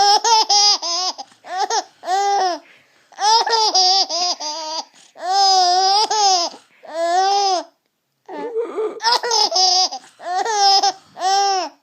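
Five-month-old baby laughing in repeated bouts of quick, high-pitched giggles, with short breaks between the bouts.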